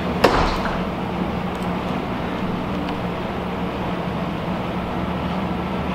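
A steady machine hum with a constant low tone, and one sharp click about a quarter second in.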